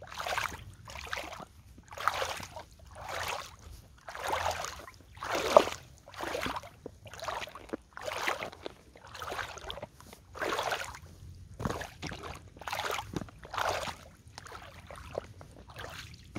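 Valentino leather high-heeled boots stepping through a shallow puddle, each step a watery splash and slosh, about one a second, softer near the end.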